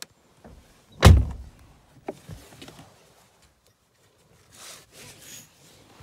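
A vehicle door pulled shut from inside, closing with one loud thump about a second in, followed by a sharper click and some quieter rustling.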